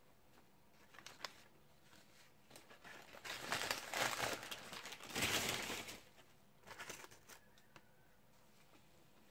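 Paper fast-food wrapper crinkling as it is handled, in two bursts about three and five seconds in, with a few faint clicks before and after.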